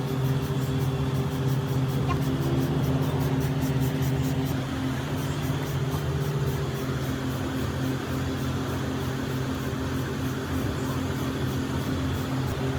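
High-pressure spray wand at a self-service car wash spraying, with the steady hum of its pump over a hiss of water.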